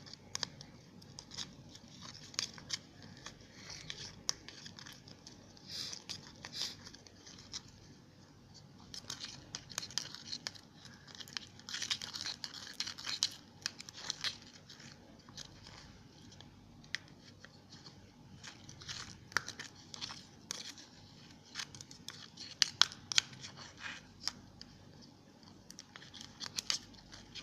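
Glue-and-soap slime mixture being stirred in a small container as it starts to clump: irregular sticky clicking and crackling.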